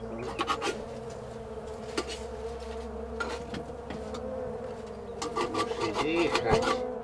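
Honeybees buzzing in a steady hum, over a run of sharp clicks and rubbing scrapes that grow busier in the last two seconds.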